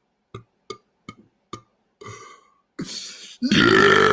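Four short mouth clicks in an even beat, about 0.4 s apart, then a loud, long burp starting about three and a half seconds in.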